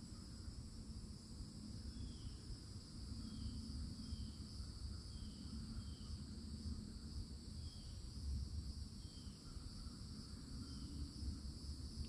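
Steady high-pitched drone of a summer cicada chorus, with a bird giving short falling chirps about eight times and a low rumble underneath.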